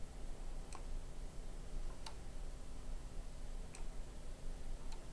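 Computer mouse button clicking four times at uneven intervals, over a faint steady hum.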